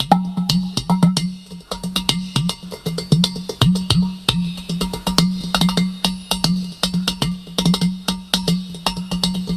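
Udu clay pot drum played by hand in a fast improvised rhythm: rapid sharp taps on the clay body over a low ringing bass tone that dips in pitch after some strokes.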